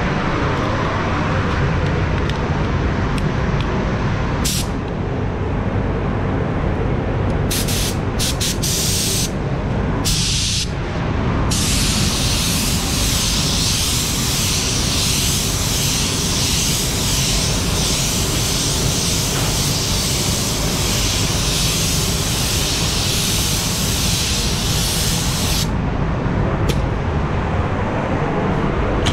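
Compressed-air paint spray gun hissing as it sprays basecoat: a few short trigger pulls, then one long continuous spraying pass of about fourteen seconds that stops abruptly, and one more short burst after it, over a steady low rumble.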